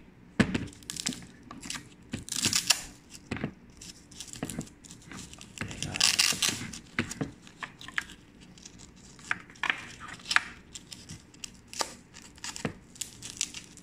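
Handling noise from a laptop power adapter and its coiled cord being unwrapped: short tearing rasps and scattered clicks, the two loudest rasps about two and a half and six seconds in.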